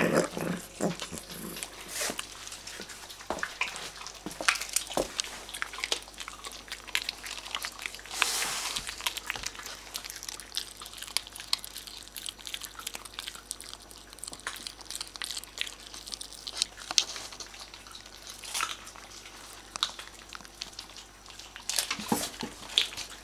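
Small dogs gnawing and crunching whole raw chicken bones, with many sharp, irregular cracks of bone breaking between their teeth.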